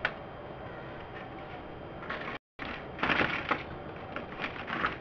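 Hand rummaging among metal tools in a tray: a run of irregular clicks and clatters starting about three seconds in, over a steady hiss that cuts out for an instant midway.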